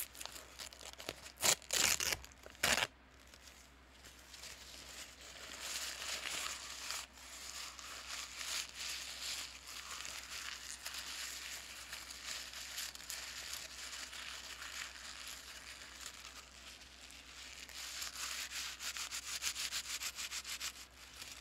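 Paper bag being crinkled and crushed by hand. A few loud, sharp crackles come about two seconds in, followed by continuous rustling and crinkling that swells again near the end.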